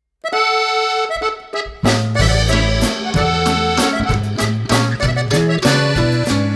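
Background music: a single held chord opens it, then a bouncy tune with bass and a steady drum beat comes in at about two seconds.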